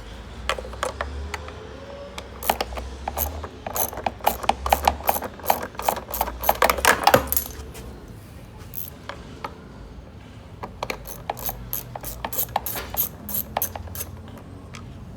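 Hand ratchet clicking in two long runs of rapid clicks as screws are backed out of a plastic A/C evaporator housing. The first run is the louder.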